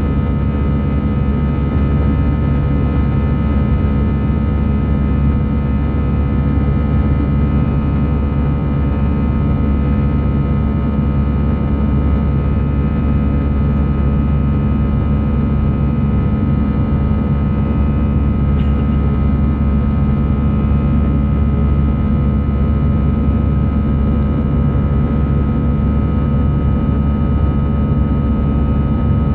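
Steady cabin noise inside an Airbus A320 in its climb after takeoff: a deep, even rumble of engines and airflow with several steady hums and a thin steady tone above them.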